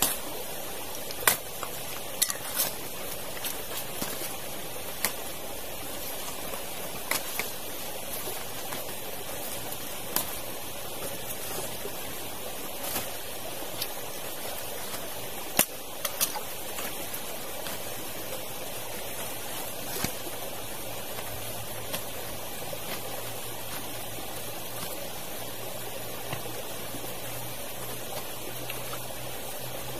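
Steady rush of a stream, with sharp pops and crackles scattered through it, typical of small birds grilling over hot charcoal.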